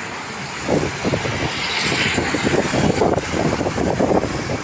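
Road traffic running past, with a vehicle passing about two seconds in, mixed with gusting wind buffeting the microphone.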